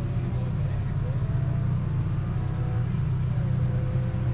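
Rally car engine idling, a steady low rumble that holds an even pitch throughout.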